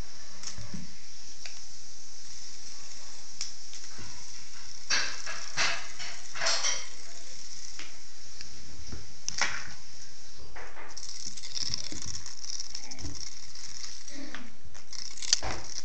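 Cat playing with a small toy on a wooden floor: scattered taps, skitters and scrapes of paws and toy on the bare boards, with a handful of sharper knocks.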